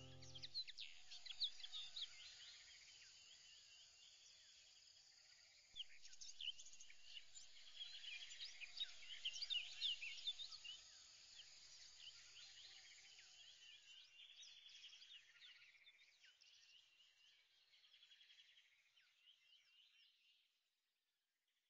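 Faint chorus of bird-like chirping, many short quick calls overlapping. It grows louder about six seconds in, then thins and fades away near the end.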